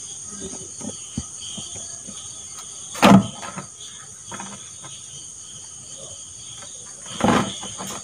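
Crickets chirring steadily at a high pitch, with two brief louder handling noises, about three seconds in and again about seven seconds in.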